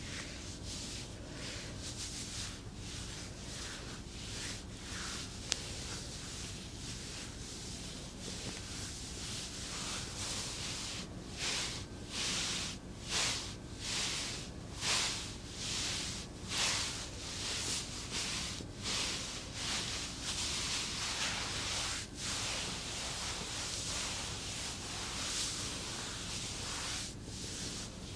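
Massage rubbing: a hiss of friction over skin, coming in steady strokes. From about ten seconds in to about twenty seconds in the strokes stand out clearly, a little more than one a second.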